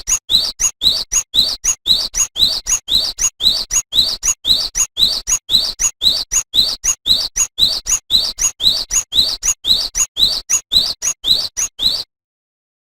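Cinereous tit (gelatik batu) singing a fast, even series of short rising whistled notes, about four a second. The song stops abruptly near the end.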